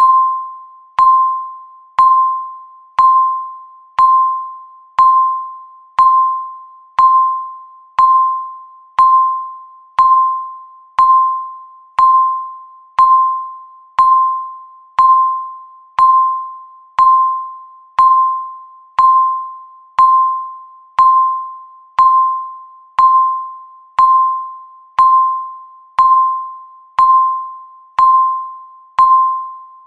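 Countdown timer's electronic beep marking each second: one short, high tone struck once a second, each fading away quickly before the next.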